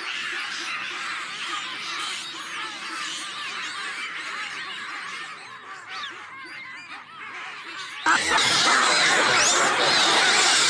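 A busy chatter of high animal calls. About eight seconds in it gives way suddenly to a much louder din of shrieks and barks from a troop of baboons chasing a leopard.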